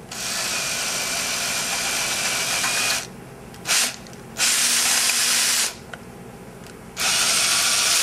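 Electric drill with a 21/64-inch bit drilling out the broken-off end of an old parking brake cable that is stuck inside its rusty metal conduit. It runs in four bursts with short pauses: about three seconds, a brief blip, about a second and a half, then a last second near the end.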